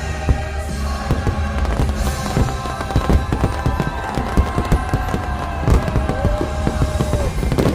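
Fireworks going off in quick, irregular succession, many sharp bangs and crackles, over loud holiday show music.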